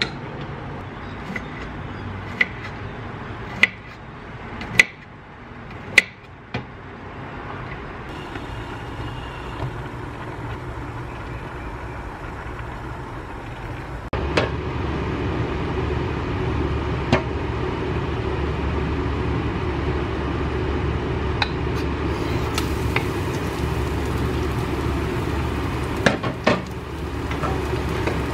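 A kitchen knife cutting cherry tomatoes on a wooden chopping board: about six sharp knocks against the board, roughly one a second. About halfway through, a saucepan of water at a rolling boil on the stove takes over with a steady, louder bubbling rumble and a few light clicks.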